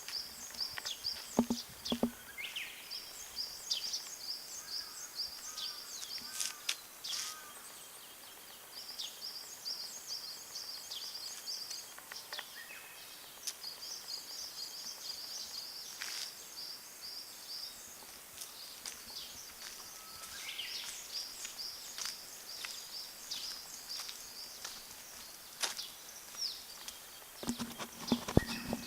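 Small birds singing: runs of rapid, high repeated chirps lasting a few seconds each, coming again and again, with scattered short clicks and knocks.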